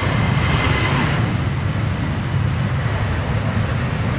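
Boeing 737-800's CFM56 turbofan engines at takeoff power on the runway: a loud, steady jet rumble, with a high fan whine that fades about a second in.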